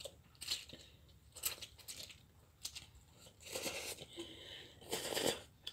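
A child slurping and chewing instant noodles: several short slurps, then two longer slurps in the second half.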